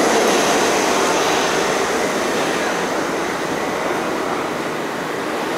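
Steady rushing noise beside a stopped R32 subway train at a station platform, easing slightly toward the end.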